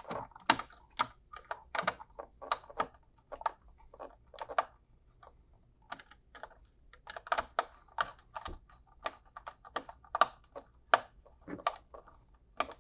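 Small precision screwdriver tightening the screw terminals on a Zooz ZEN16 relay: an irregular run of small sharp clicks and ticks as the blade works the screws and the wires are handled.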